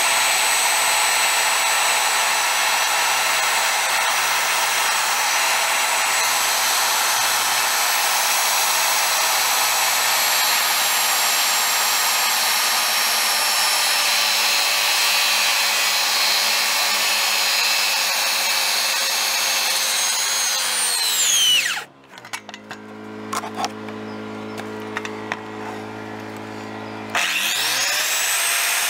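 Corded circular saw cutting a red cedar stair stringer, running steadily for about twenty seconds, then released and spinning down. For a few seconds only a steady generator hum is left, and then the saw starts up again near the end.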